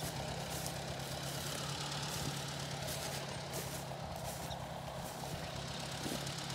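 1956 Ford 860 tractor's four-cylinder engine running steadily under load while it pulls a sickle bar mower through standing oats.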